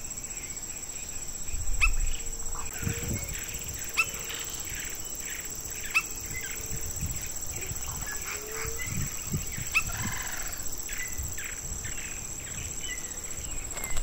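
Savanna ambience: a steady high-pitched insect drone with scattered short, sharp bird calls, the clearest repeating about every two seconds.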